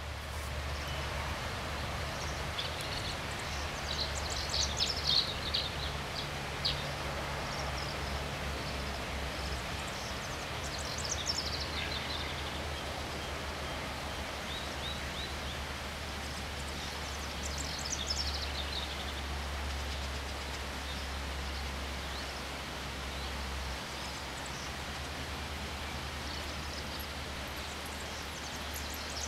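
Steady rush of a river under a steady low hum, with short high songbird phrases breaking in about four times.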